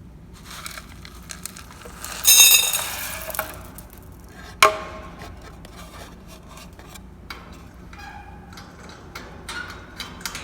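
Bowls and cage parts being handled while a parrot's food is set out: small clicks and clinks, a loud ringing clatter about two seconds in, and a sharp knock a couple of seconds later.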